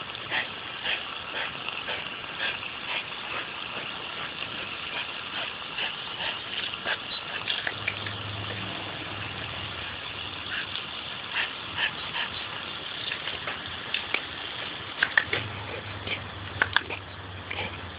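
Belgian Malinois biting and snapping at the jet of a garden hose: a steady hiss of spray with many sharp clicks from her snapping jaws and the water striking her, a few louder snaps near the end.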